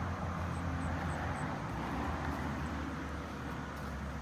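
Portable generator engine running steadily with a low, even hum.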